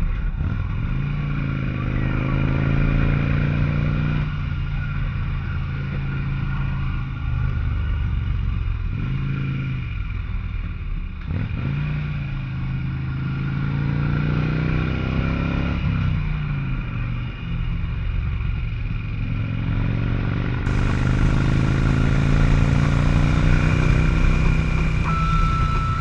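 2003 Harley-Davidson Electra Glide Classic's Twin Cam 88 V-twin engine running under load on a winding uphill climb. Its pitch dips and climbs again several times as the throttle is rolled off and back on.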